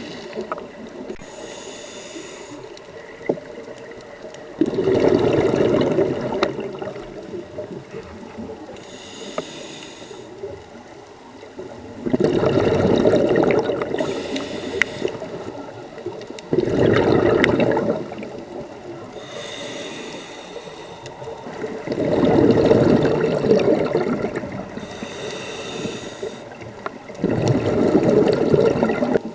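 Scuba diver breathing through a regulator, heard underwater: five loud bubbling exhalations a few seconds apart, each followed by a fainter hissing inhale.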